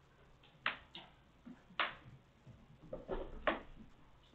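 A cat at play: irregular sharp taps and scuffs, the loudest a little under two seconds in and about three and a half seconds in.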